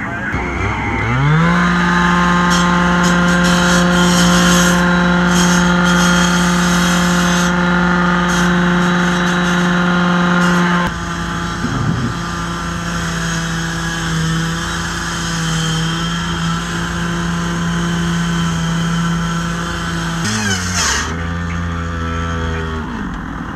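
Gas-powered rotary cut-off saw revving up about a second in and running at full speed while cutting metal. Its pitch sags a little about eleven seconds in, drops toward idle near the end, then revs back up.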